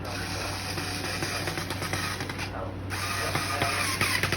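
Tool working on a wooden cat wheel's assembly: a steady mechanical whirr with ratchet-like clicks. It stops briefly about two and a half seconds in, then starts again.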